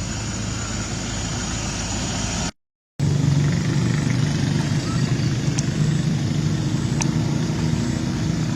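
A steady engine hum, cut by half a second of silence about two and a half seconds in, then running on with a stronger, steady low hum.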